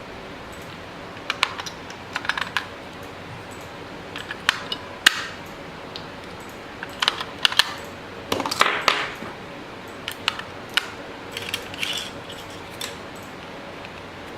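Irregular small clicks, taps and short scrapes as four AA batteries are fitted into a camcorder video light's battery compartment.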